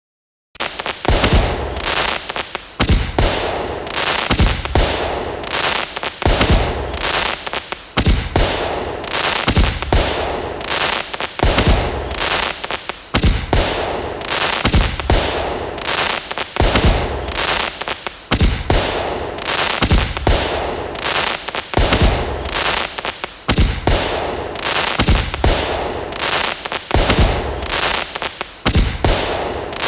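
Fireworks sound effect: a dense run of loud bangs, pops and hissing crackle that starts suddenly about half a second in and goes on in a looping pattern, repeating about every two seconds.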